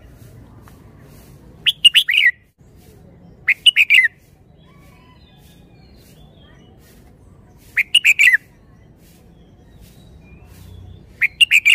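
Red-whiskered bulbul singing: four short, loud phrases of a few quick warbled notes each, spaced two to four seconds apart.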